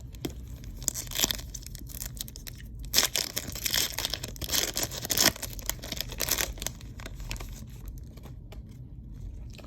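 Panini Haunted Hoops card pack wrappers being torn open and crinkled, in several short rips with quieter handling between.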